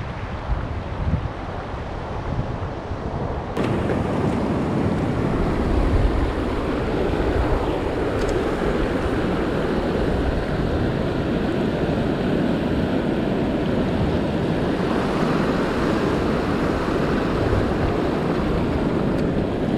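Sea waves washing with wind buffeting the microphone, a steady rushing noise that turns abruptly louder and brighter about three and a half seconds in.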